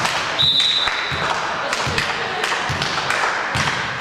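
A whistle blown once, a steady high tone about a second long starting just under half a second in, over a basketball bouncing on a gym floor and the chatter of a crowd in the hall.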